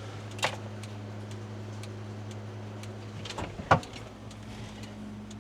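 A steady low hum with a few light, sharp clicks and taps, including a small cluster a little past halfway.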